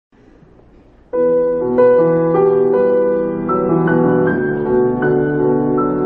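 Piano music, starting suddenly about a second in after faint hiss, with notes changing every half second or so.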